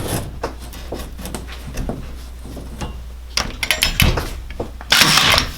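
Clicks and handling noises of a DeWalt DC701D1 20V cordless cable stapler and electrical cable as a staple run is worked. A cluster of sharp clicks comes about three and a half seconds in, and a loud burst about half a second long comes near the end.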